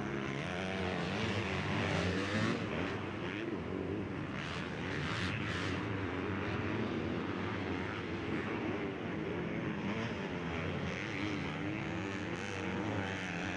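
Motocross bike engines revving on the track, the pitch rising and falling as the riders open and close the throttle and shift through the turns and climbs.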